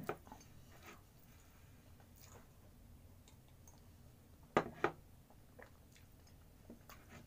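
A drinking cup set down on a table, two sharp knocks close together about halfway through, amid faint small clicks of eating.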